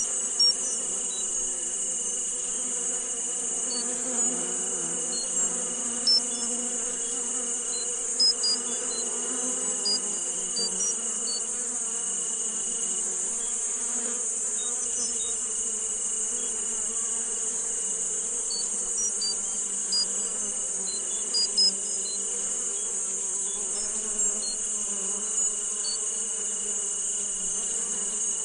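Tinnitus sound-therapy soundscape: a steady high hiss with a steady high tone that drops out now and then, scattered short high chirps, and a low drone underneath.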